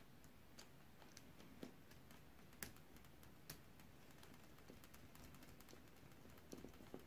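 Near silence with a few faint, scattered small clicks and ticks from handling wires and a screw terminal block while wiring, the loudest about two and a half and three and a half seconds in.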